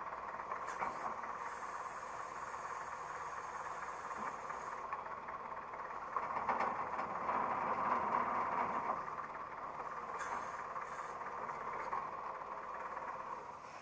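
Old forklift's engine running steadily at a low idle, a little louder from about six to nine seconds in.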